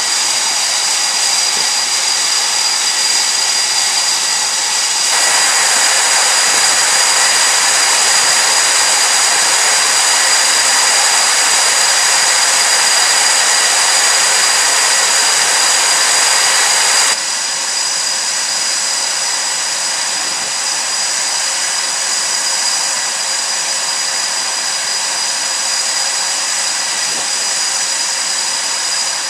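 Jet engines of carrier aircraft running: a steady high whine over a loud rushing roar, which steps up in level about five seconds in and drops back about seventeen seconds in.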